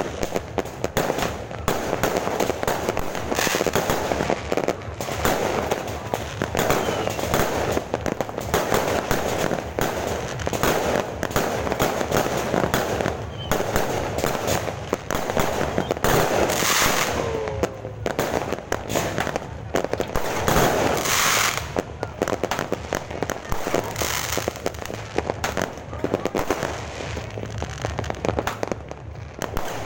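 Fireworks and firecrackers going off in a dense, rapid run of bangs and crackles, with a few louder blasts around the middle.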